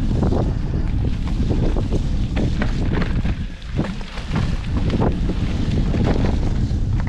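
Wind buffeting the microphone as a mountain bike rides a bumpy dirt trail, with the bike rattling and knocking over the rough ground. Short knocks come at uneven intervals over a steady low rumble.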